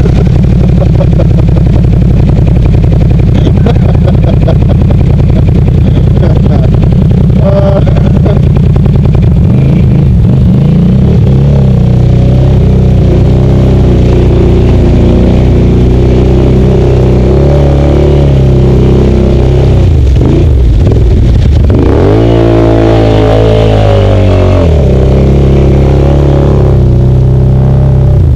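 Can-Am Outlander XMR 800 ATV engine running loud and steady while churning through water, with one rev rising and falling about three-quarters of the way through.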